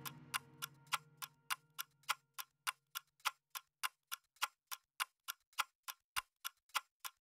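Clock-like ticking in the background music, about three evenly spaced ticks a second, with a held low note fading out in the first two seconds.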